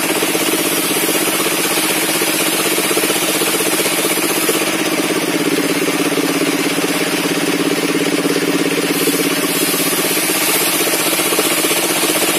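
Engine of a sawmill's circular saw table running steadily.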